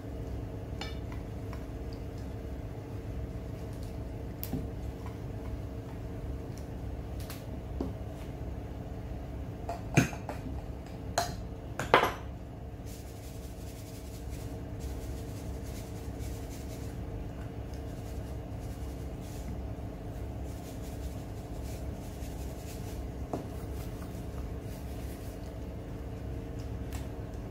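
A few sharp clicks and knocks of a plastic platter and spice jars being handled, the loudest cluster about ten to twelve seconds in, over a steady low hum.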